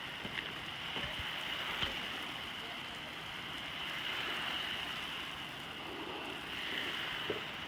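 Soft-wash spray of a 3% cleaning mix hitting a dirty roof, a steady hiss like rain with a few faint ticks.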